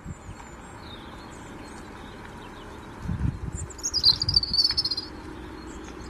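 A songbird's high trill, about a second and a half long and starting about three and a half seconds in: a quick falling note runs into a fast string of repeated notes. Under it is a low rumble, and fainter high chirps come and go.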